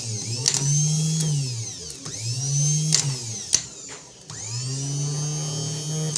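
Suzuki Mehran starter motor being test-run in short bursts. It whines up to speed and winds down three times, the last run longer, with sharp clicks between runs.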